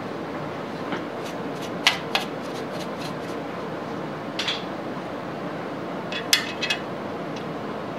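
Vertical milling machine running with a steady hum while a 3/4-inch end mill cuts a slot in a metal bar. A few sharp metallic clinks come about two seconds in, again past the middle, and in a quick cluster after six seconds as a hand works at the cutter and the slot.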